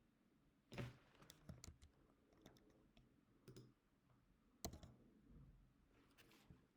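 Faint, scattered clicks and taps, a dozen or so at irregular intervals, with two sharper ones about a second in and near the middle, over near-silent room tone.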